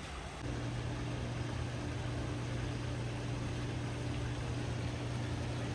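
A steady low motor hum starts about half a second in and runs on evenly, over the constant hiss of the pool's waterfall.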